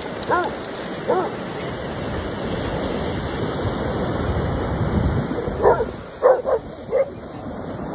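Dogs barking in play over the steady wash of surf: two barks in the first second or so, then a quick run of about five barks near the end.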